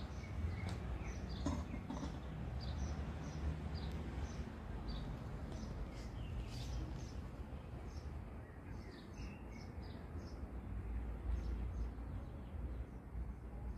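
Small birds chirping: many short, high chirps in quick runs, over a low steady outdoor rumble.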